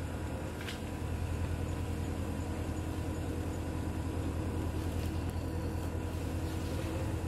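An engine idling steadily out of sight: a low, even hum with a fast pulse.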